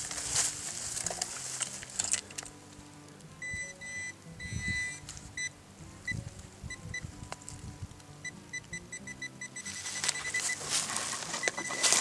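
Handheld metal-detecting pinpointer beeping in short high-pitched bursts. From about eight and a half seconds in the beeps come faster and run together into a steady tone, the signal rising as the probe closes in on buried metal in the dug hole. Scraping and knocking of soil digging at the start.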